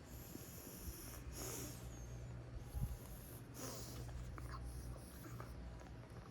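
Domestic cat purring in a steady low drone, with two airy nasal breaths about a second and a half and three and a half seconds in.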